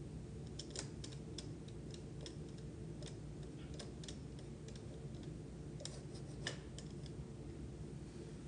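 A run of light, irregular clicks and taps, a few a second, the loudest about six and a half seconds in, over a steady low hum.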